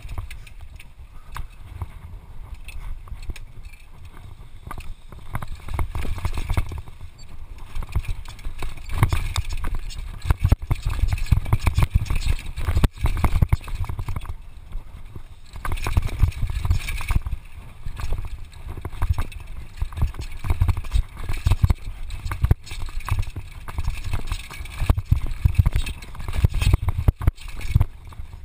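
Mountain bike ridden fast down a rough dirt and rock downhill trail, recorded by a GoPro on the rider: a steady deep rumble and the rattle of the bike over the bumps, rising and falling in loudness, with a few sharp knocks.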